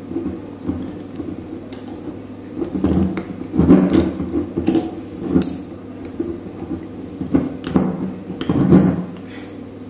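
Wing corkscrew being screwed into a wine bottle's cork and its lever arms worked: irregular metal clicks, creaks and scraping knocks in two busy bursts, with no pop of the cork.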